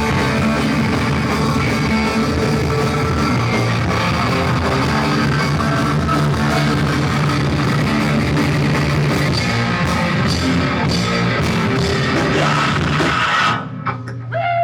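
Rock band playing live, with guitars and a drum kit, loud and dense; the song ends near the end.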